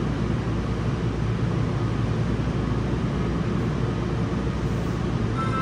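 Steady rumble of a Yokohama Municipal Subway 4000 series train running, heard from inside the passenger car.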